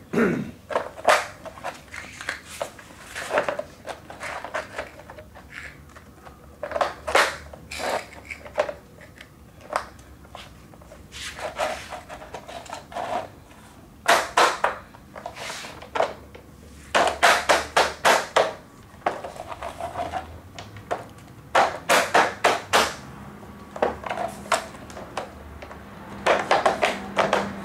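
Interlocking PVC diamond-plate floor tiles being pressed together by hand, their connectors snapping into place in a series of sharp clicks and knocks, often several in quick succession.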